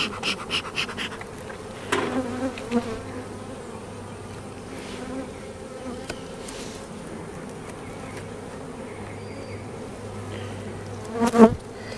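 Honeybee colony buzzing steadily from the opened hive, a low even hum. In the first second comes a quick run of short puffs from the beekeeper's bellows smoker, and near the end a single sharp knock.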